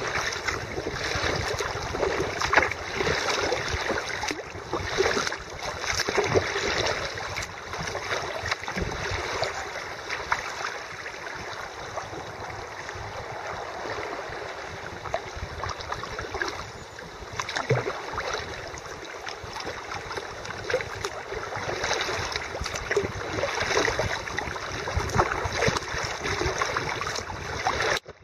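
Fast river water rushing and splashing around a kayak on a river in flood, with uneven splashes that rise and fall.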